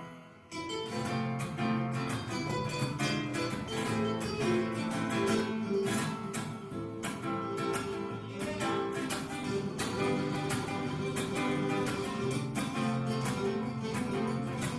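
Background music: acoustic guitar playing quick plucked notes, coming in after a brief pause about half a second in.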